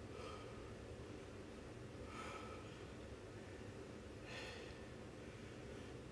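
A man's hard exhales under effort during single-arm kettlebell military presses, one short puff about every two seconds, in time with the press reps.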